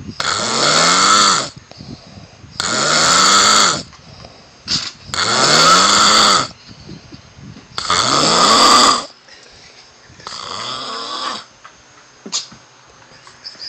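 A person asleep, snoring loudly: five long snores about every two and a half seconds, each with a pitch that rises and then falls. The last one is quieter.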